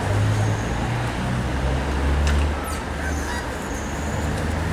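Steady low rumbling background noise with a deep hum that shifts in pitch, and a few faint clicks.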